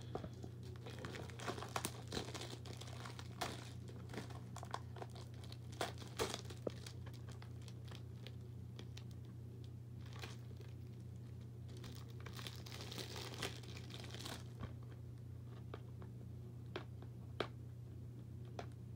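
Packaging being opened by hand: irregular crinkling, rustling and tearing with scattered sharp clicks, over a steady low hum.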